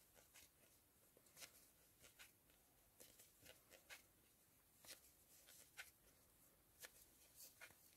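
Near silence with faint, irregular soft ticks and rustles, about one or two a second, from a metal crochet hook working plush chenille yarn as single crochet stitches are made.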